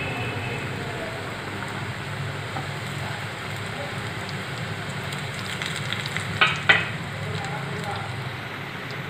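Shingaras deep-frying in hot refined oil in an aluminium kadai: a steady bubbling sizzle. Two sharp clicks come close together about six and a half seconds in.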